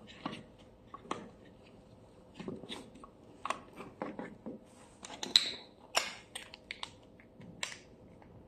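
Plastic clicks and handling noises from a current clamp's housing as a 9-volt battery is seated in its battery compartment and the battery cover is snapped back on. The loudest click comes a little past halfway.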